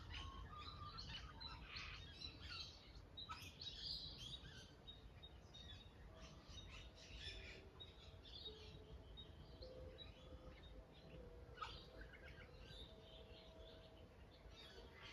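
Faint birdsong from several birds: many quick chirps and twitters, busiest in the first few seconds, then sparser.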